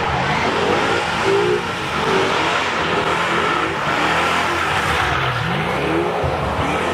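Fox-body Ford Mustang doing donuts: the engine revs up and down again and again over the steady hiss and squeal of spinning rear tyres.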